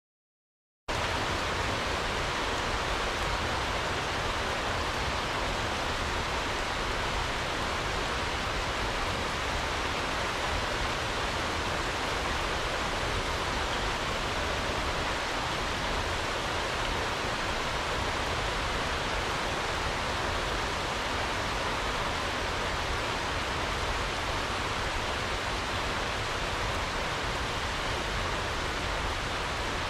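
Steady rain falling, an even hiss with no breaks. It starts abruptly about a second in.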